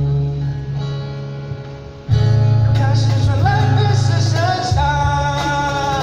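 Music: a karaoke song's accompaniment with guitar and a heavy bass line, with a melody over it. It gets louder about two seconds in.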